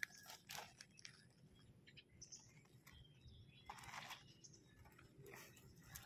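Near silence, with faint scattered rustles and light scrapes on gravel as a land crab is handled on the ground; a slightly louder brief rustle about four seconds in.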